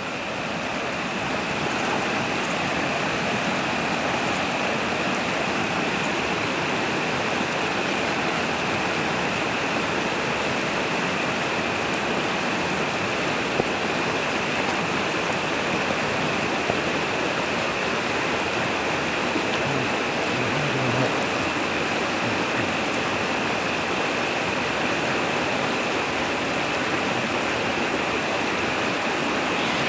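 Yarra River white water rushing steadily over rock rapids below the diversion tunnel outlet, an even, unbroken rush that fades in over the first second or so.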